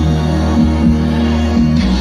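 Loud DJ dance music over a festival sound system, with a heavy, steady bass and a repeating bass line.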